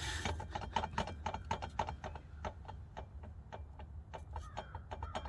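2007 Cadillac SRX driveshaft shaken by hand at its center support bearing, giving a quick, irregular series of light clicks and knocks. The knocking is play in the worn center support, whose grommet is torn through.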